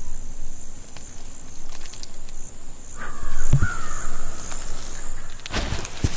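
A single harsh bird call lasting just over a second, about three seconds in, over a steady high insect drone, with a few soft low knocks.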